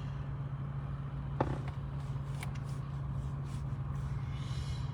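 Steady low drone of a moving vehicle, with one short, sudden sound about a second and a half in.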